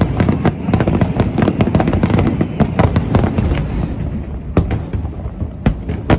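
Fireworks display: a dense barrage of rapid crackling bursts and booms with a continuous rumble, thinning to a few separate sharp cracks after about four seconds.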